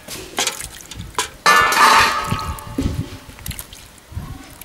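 Water splashing as it is tipped off a steel plate while peeled ash gourd slices are washed, with a loud splash about a second and a half in and a light clatter of the steel plates. Smaller splashes follow as hands swish the slices in the water.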